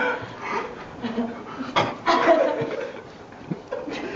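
People chuckling and laughing in short bursts, with some talk mixed in.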